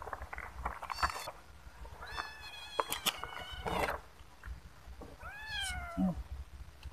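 Stray kittens meowing while they wait to be fed: a short meow about a second in, a longer one around two seconds in, and a rising-then-falling meow near the end. A few light knocks sound in between.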